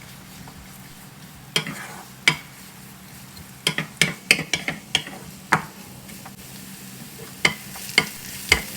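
Minced garlic, shallots and onion sizzling in hot oil, with a spatula clacking and scraping against the pan in irregular strokes as they are stir-fried until fragrant.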